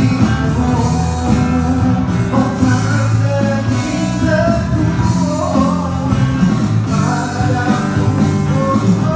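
Live band music: a singer on a microphone over acoustic guitar, with a beat played with drumsticks on electronic drum pads.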